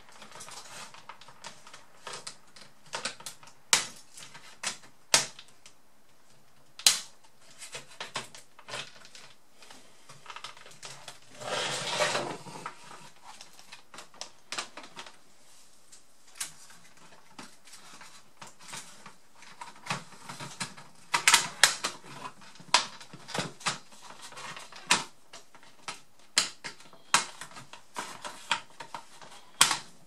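Irregular plastic clicks, snaps and taps as a Toshiba Satellite Pro A300 laptop's plastic case is pried apart and handled with a plastic pry tool, with a longer rustling scrape near the middle.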